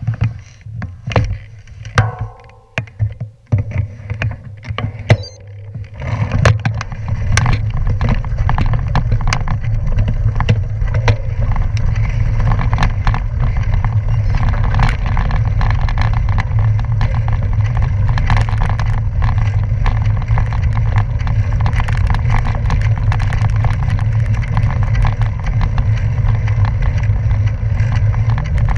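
Bicycle tyres rolling over a loose gravel road, with scattered knocks and rattles at first. From about six seconds in it becomes a steady, loud rumble and crunch as the bike rides along at speed.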